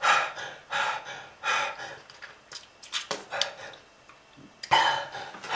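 A person coughing and gasping for breath in quick, ragged bursts, about one every half second, with a short pause about four seconds in: a smoker's cough, presented as the sign of lung disease.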